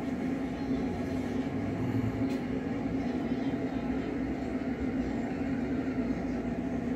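A steady low hum with one constant tone.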